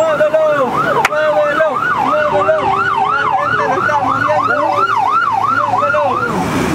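A siren yelping, its pitch sweeping up and down about three to four times a second, with a sharp click about a second in.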